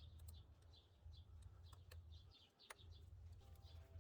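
Near silence: a faint low hum with faint, repeated high bird chirps and a few soft clicks.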